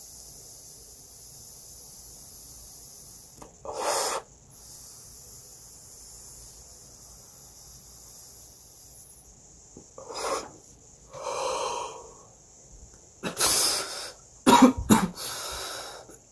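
Long, steady hissing draw on a vape pen cartridge, broken by one short loud breath about four seconds in and ending about nine seconds in. Then a few loud exhales and coughs, the last and loudest bunched together near the end.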